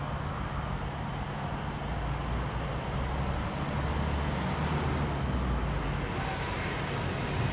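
Steady low outdoor background rumble, swelling slightly around the middle before easing back.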